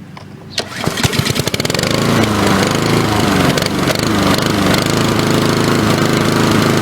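Lawn mower engine starting: about half a second in, separate firing pulses speed up as it catches. It then runs loud, its pitch rising and falling as it is revved.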